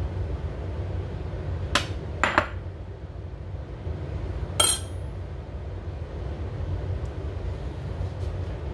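A metal spoon clinking against a glass bowl and a ceramic plate as food is scooped and spooned out: two quick taps about two seconds in, then a louder ringing clink a little later, over a steady low hum.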